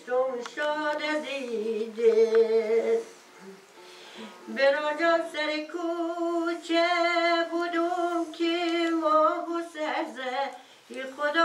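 Background music: a woman's singing voice holding long, wavering notes, with a short break about three seconds in.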